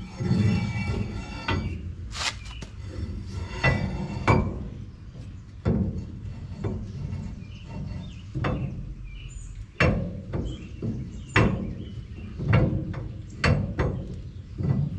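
About a dozen sharp, irregular metal knocks and clinks as a Ford F-350's rear axle shaft is slid into the axle housing and its flange is worked into place against the hub by hand.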